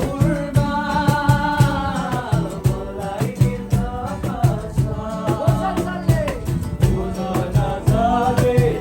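Music: a song with a sung melody over a steady beat.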